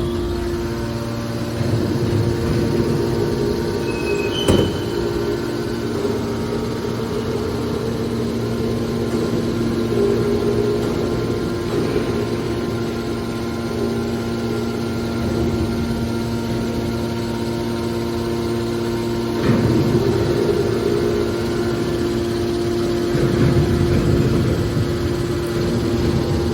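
Hydraulic scrap-metal baler running: a steady machine hum with a constant two-note whine from its motor and pump, a sharp clank about four seconds in, and heavier rumbling working noise twice later on.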